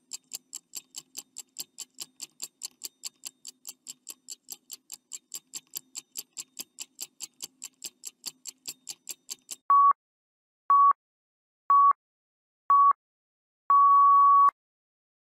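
Countdown-timer sound effect. A clock ticks about four times a second for roughly nine and a half seconds, then there are four short beeps a second apart and a longer final beep, signalling that the time is up.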